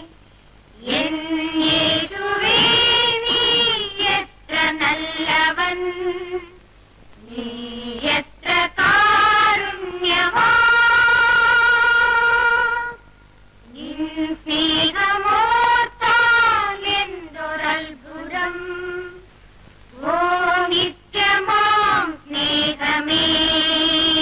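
A woman's voice singing a slow hymn in short drawn-out phrases, with brief pauses between them.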